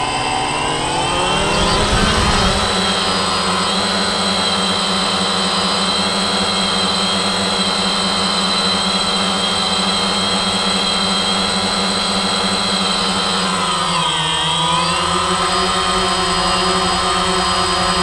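DJI quadcopter's electric motors and propellers whining, heard from the GoPro mounted on the drone. The pitch rises as it lifts off, then holds steady in flight, dipping briefly and coming back up about fourteen seconds in.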